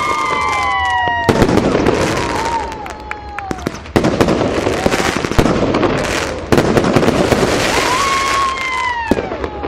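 Fireworks going off: whistling shells with falling whistles near the start and again near the end, and dense crackling and popping bursts in between.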